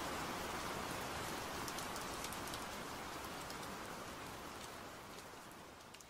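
Steady rain falling, an even hiss with scattered drop ticks, slowly fading out.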